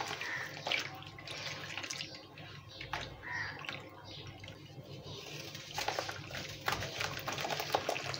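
Hands squeezing and crumbling lumps of packed sand in a basin of water: sloshing and splashing water with many small crackles, which grow thicker in the last couple of seconds.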